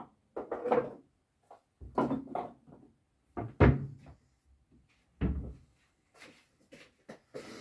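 Wooden kitchen wall cabinet being used: a series of knocks and clunks as things are handled and set down inside it, the loudest a little past halfway, then the cabinet door shut with a thump about five seconds in.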